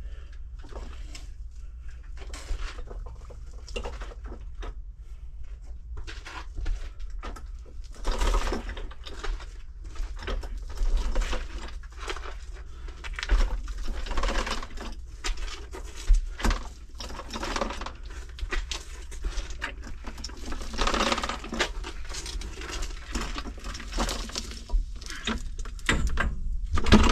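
Drum-type drain-cleaning machine dragged across a crawlspace's dirt and gravel floor by a person crawling beside it: irregular scraping, rustling and knocks, with a sharp knock near the end as it is set down by the pipe.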